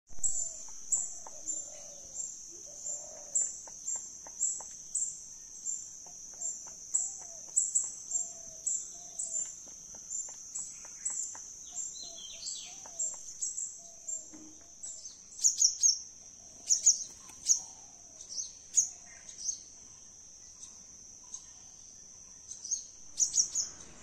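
Birds chirping at short, regular intervals, with a burst of louder chirps in the middle, over a continuous high-pitched insect drone.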